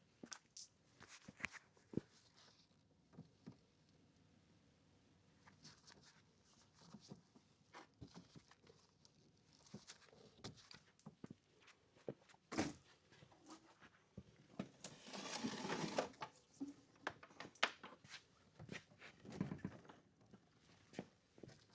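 Faint scattered clicks and light knocks of hand work on electrical wiring, as the black L1 wire is fitted into a solar inverter's terminal, with a longer rustle about fifteen seconds in.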